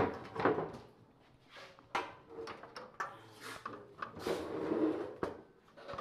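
Instant gas water heater casings being handled on a table: several sharp knocks and clacks as they are set down and picked up, with scraping and rustling in between.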